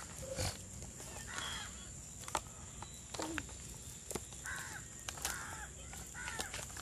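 Several short bird calls, faint, with light clicks and knocks as pieces of chopped meat are handled and dropped into a plastic tub.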